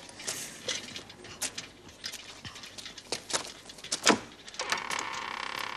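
Scattered light clicks and knocks, a sharper knock about four seconds in, then near the end a wooden door creaking on its hinges for about a second and a half.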